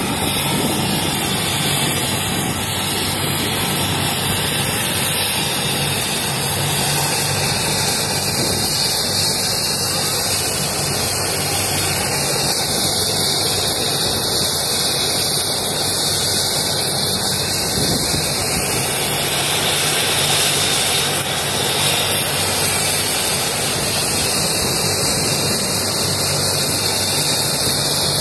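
Helicopter on the ground with its engine and rotor running, a loud, steady noise that does not let up.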